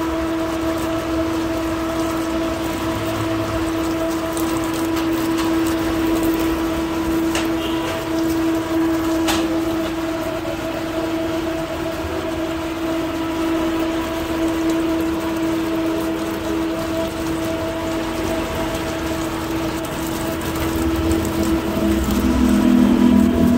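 Tap water running and splashing into a stainless steel sink as shrimp are rinsed by hand, over a steady hum.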